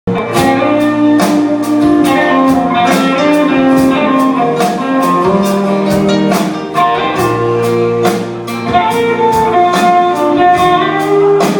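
Instrumental intro of a country song: guitars playing a melody over a steady drum beat, before the vocals come in.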